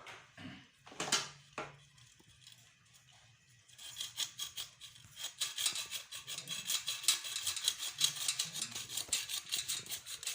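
A few knocks in the first two seconds. Then, from about four seconds in, quick back-and-forth rasping strokes, about six a second, like a file or abrasive being worked by hand.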